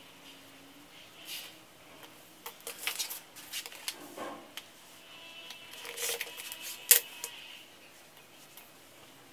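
Cotton fabric strips rustling and sliding as they are folded and stacked on a cutting mat, with light knocks and clicks of an acrylic quilting ruler being set down and moved; a sharp clack about seven seconds in is the loudest.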